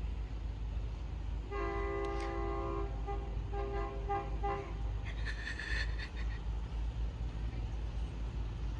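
Diesel locomotive's horn sounding: one long blast about a second and a half in, then three or four short toots, over a steady low rumble. A brief higher-pitched sound follows for about a second, about five seconds in.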